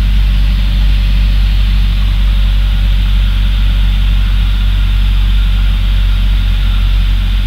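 Cessna 172's piston engine and propeller droning steadily in the cabin, throttled back to about 1500 RPM on final approach for landing.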